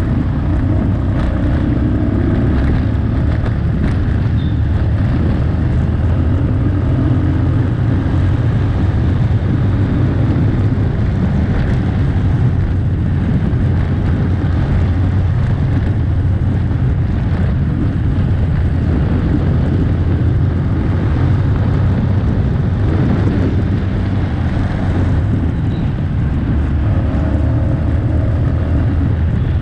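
Steady, loud rumble of a moving motor vehicle with wind buffeting the microphone, as heard while riding along a street.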